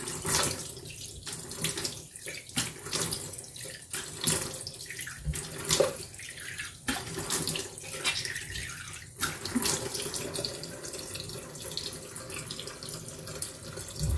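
Bathroom sink tap running while hands splash water onto the face, rinsing it, in irregular splashes over the steady flow. The water cuts off suddenly at the very end.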